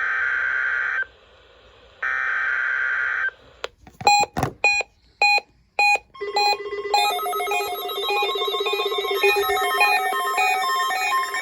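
Electronic alert tones. A buzzing tone pulses on and off, about a second on and a second off, for the first three seconds. A few sharp beeps follow, then from about six seconds a fast warbling pattern of several tones over a steady low hum.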